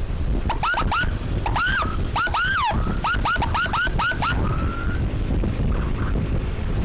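Electronic emergency siren blipped in a fast series of about fifteen short rising chirps, ending in a brief steady tone. Under it runs the wind rush and engine rumble of a moving motorbike.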